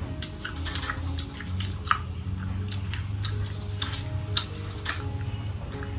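Eating sounds: chopsticks clicking against a plate and chewing of stir-fried scorpions, heard as a scattering of short, sharp clicks over a low steady hum.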